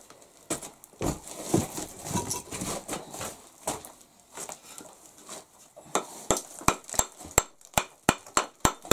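Bricks clattering and knocking as they are handled. Then, from about six seconds in, a hammer taps on a brick about three times a second, trimming a half brick to size.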